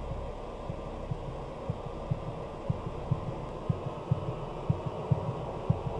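Heartbeat-like low thuds, paired and about once a second, growing louder over a steady low drone.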